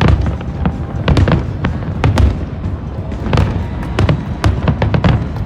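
Aerial fireworks bursting in quick succession, sharp cracks and deep booms several times a second, with music playing underneath.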